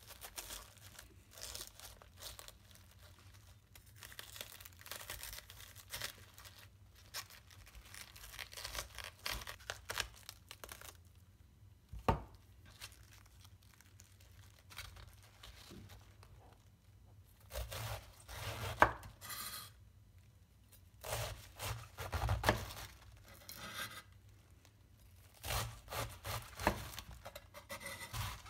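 Chef's knife cutting through a half savoy cabbage on a wooden board: crisp crunching and tearing of the leaves as the core is cut out, with one sharp knock partway through, then groups of slicing strokes through the cabbage in the second half.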